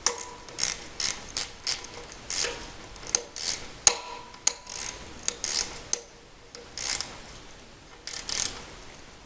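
Hand tools working metal parts of a Troy-Bilt tiller transmission: a run of irregular ratcheting clicks and clanks, two of them with a brief metallic ring, as a stuck cap held by an O-ring is twisted and pulled out of the case.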